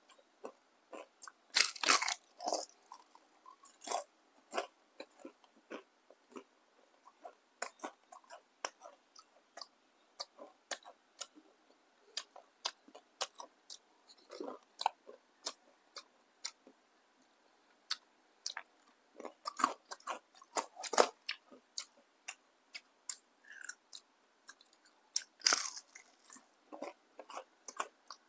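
Close-up eating: biting into and chewing crispy battered fried tempeh fritters, a steady run of small crackly crunches with a few louder bites, the loudest about two seconds in and near the end.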